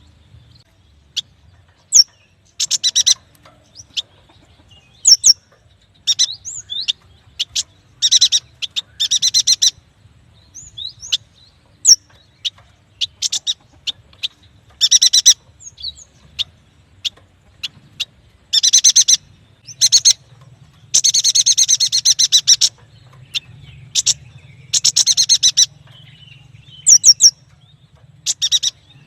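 Yuhina singing: short, rapid, buzzy trills under a second long, between single sharp high chirps. The bird repeats them at irregular gaps, with a longer run of close trills about three-quarters of the way through.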